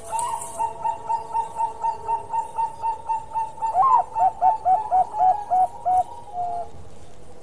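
Bangkok-line zebra dove (perkutut) singing. It gives a quick run of short cooing notes, about four a second, then a higher rising note about four seconds in. A run of louder, slightly lower notes follows, ending with one longer note.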